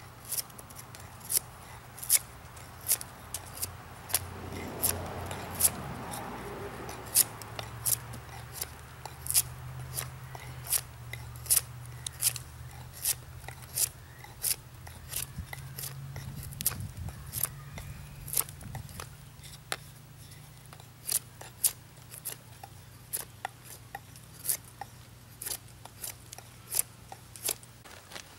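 Bark River Bravo 1.5 knife, A2-steel blade, shaving down a wooden bow-drill spindle: a run of short, sharp cutting strokes about one to two a second, which stop just before the end.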